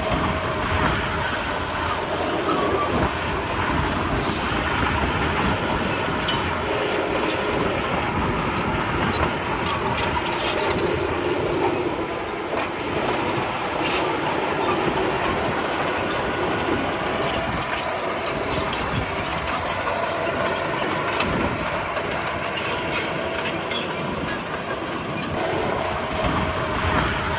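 Komatsu D31P crawler bulldozer working: the diesel engine runs steadily under a continual clatter of steel tracks, with scattered sharp clanks and a faint steady squeal.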